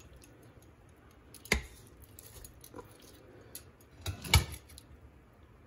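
Metal tongs knocking against a pressure cooker's inner pot as browned chicken pieces are set onto the trivet: two sharp knocks, about a second and a half in and again near four and a half seconds, with a faint tap between.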